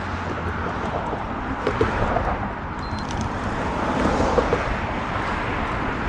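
Steady rolling noise of a recumbent trike ridden along a paved path: a low tyre rumble under an even rush of air, with a few small clicks.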